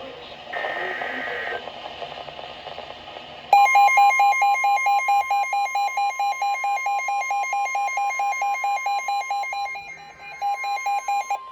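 Emergency Alert System tones between two severe thunderstorm warnings: the tail of a screechy SAME digital header data burst, then about three and a half seconds in a loud steady single-pitch NOAA Weather Radio warning alarm tone starts, with a rapidly pulsing alarm beep under it that breaks off briefly near the end.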